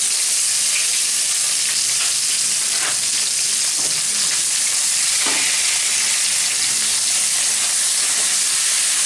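Freshly added sliced onions sizzling in hot mustard oil in a non-stick kadai, with a steady hiss. A wooden spatula stirs them through, with a few faint scrapes.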